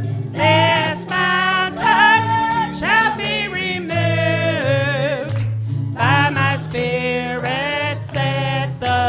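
Live gospel chorus: a woman's lead voice sings over a bass guitar, with a tambourine jingling and hands clapping on the beat.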